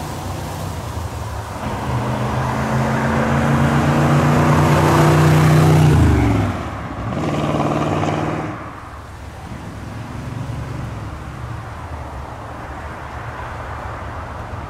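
1971 Corvette Stingray's V8 engine driving by: its note grows louder as it approaches, drops sharply in pitch about six seconds in as it goes past, pulls once more briefly, then settles to a quieter, steady running sound.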